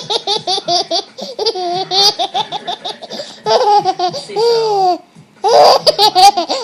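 A baby laughing hard: quick runs of high-pitched giggles, then a few longer drawn-out laughs, with a short break about five seconds in.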